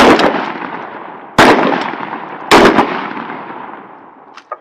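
M26 MASS 12-gauge shotgun shots on a firing range: three loud shots about a second apart, each with a long rolling echo, and fainter shots close behind the first and third. A couple of faint clicks near the end.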